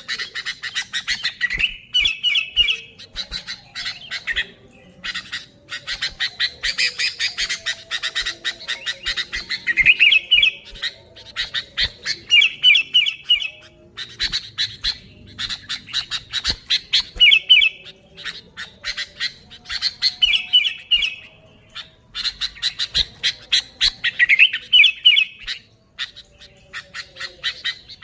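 Sooty-headed bulbuls (kutilang) calling noisily: a rapid, harsh chatter, broken every few seconds by short bubbly whistled phrases.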